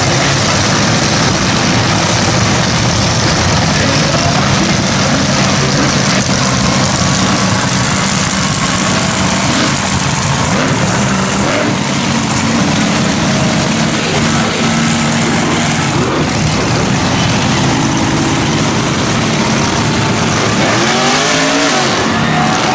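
Monster truck engines running loudly and steadily, with a truck revving up, its pitch sweeping upward near the end.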